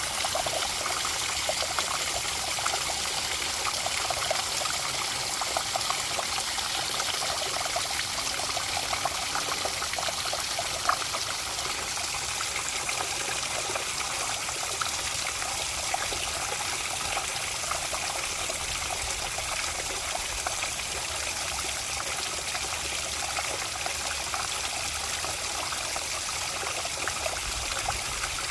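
Water trickling and splashing steadily, a small stream or runnel flowing over stones, with a dense patter of small splashes.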